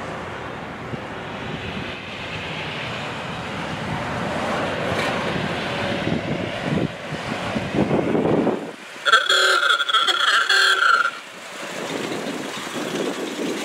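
Vehicles passing on the road: a pickup truck and a Ford Model A driving by, with steady road noise swelling and fading. About nine seconds in, a horn sounds for about two seconds.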